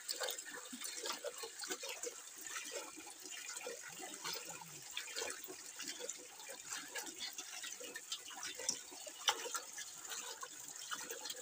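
Hands swishing and rubbing a mass of leafy greens in an aluminium bucket of water: continuous sloshing and splashing as the leaves are washed.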